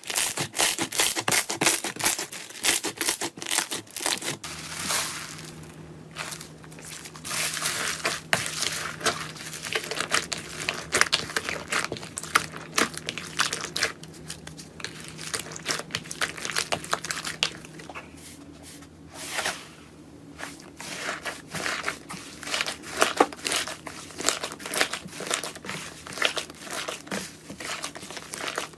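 Slime being squeezed and pressed, with dense, irregular sticky crackling and popping. A faint low hum comes in about four seconds in.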